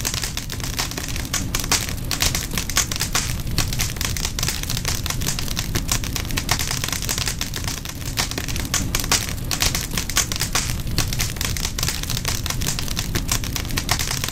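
A fire crackling steadily: dense small snaps and pops over a low rumble.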